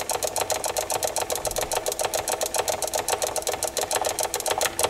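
A small machine running with rapid, even clicking, about eight clicks a second, over a steady hum.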